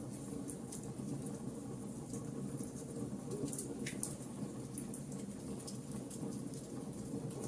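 Wood fire burning in a fireplace: a steady low rush of flames with frequent small crackles and pops, and one sharper pop about four seconds in.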